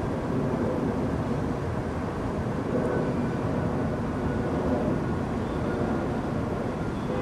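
Steady low rumble of a London Underground train moving slowly over the tracks in the distance, with a faint thin whine above it.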